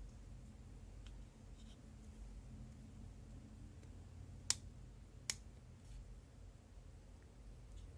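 Two sharp, light metal clicks about a second apart over quiet room tone, as a precision screwdriver works a small screw on a Kershaw 1620ST folding pocket knife.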